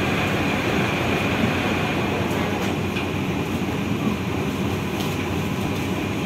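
Steady rumble of engines running on a ferry's enclosed vehicle deck, with a thin high whine that fades after the first couple of seconds.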